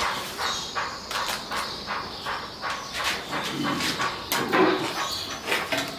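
Muzzled pit bull panting rapidly, about three breaths a second, while restrained.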